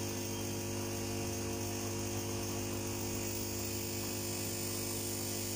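A steady low electrical hum with overtones, unchanging throughout.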